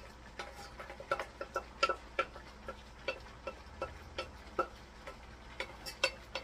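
Wooden spatula knocking and scraping inside a small stainless steel saucepan as sauce is scraped out, an irregular run of light taps, two to three a second, each with a short metallic ring.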